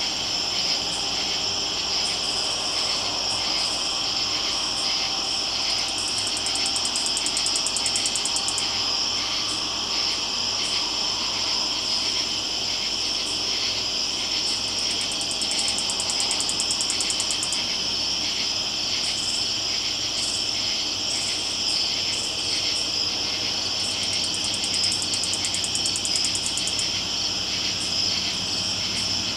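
Night chorus of crickets and other insects: a steady, high, shrill trilling, with a rapid electric-sounding buzz breaking in three times, like a stun gun.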